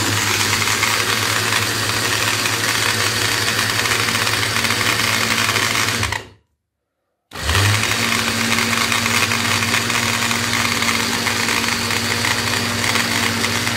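Kenwood electric grinder with a small glass grinding jar, its motor running at full speed as it grinds granulated sugar into powder. It runs in two stretches, cutting off sharply about six seconds in and starting again about a second later.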